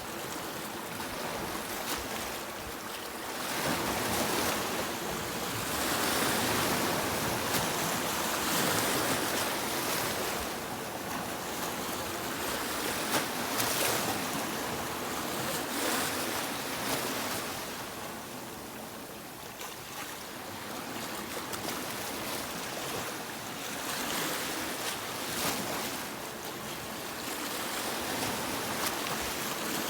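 Sea waves surging and washing on a beach, a steady rush of surf that swells and eases in slow surges, dipping into a brief lull past the middle. Faint crackles of spray and foam run through it.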